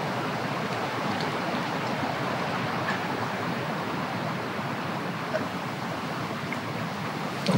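Steady rushing noise with a few faint ticks scattered through it.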